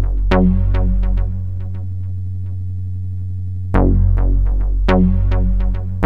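Background electronic music: short plucked synth notes over a held bass. The notes drop out for a couple of seconds in the middle and come back near the end.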